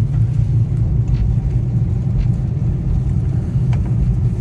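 Steady low rumble of a car being driven, engine and tyre noise heard from inside the cabin as it goes through a road tunnel.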